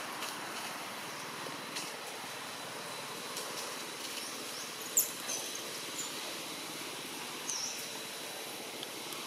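Outdoor ambience: a steady hiss of background noise with a faint, steady high tone, broken by a sharp, very high chirp about halfway through and a smaller one a couple of seconds later.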